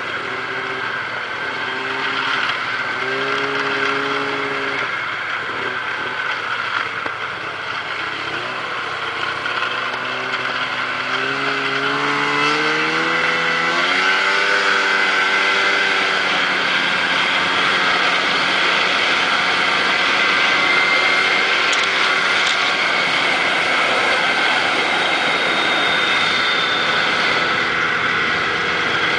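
Snowmobile engine running under way, its pitch wavering early on, then climbing as it speeds up about twelve seconds in and holding steady at speed.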